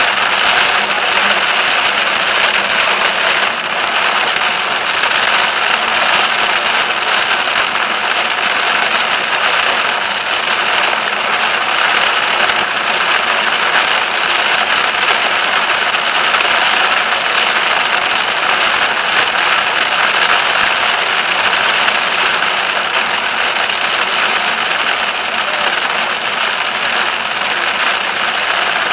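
Heavy rain falling in a dense, steady hiss, mixed with a vehicle's engine and tyres on the wet motorway.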